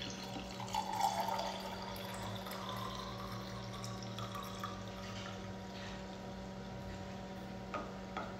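Breast milk pouring in a thin stream from a wearable breast pump's collection cup into a glass jar, trickling steadily over a steady low hum, with two light clicks near the end.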